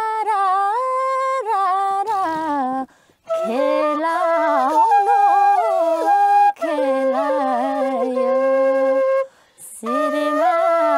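Bansuri flute playing an ornamented folk melody in long phrases, with brief breath pauses about three seconds in and again near the end.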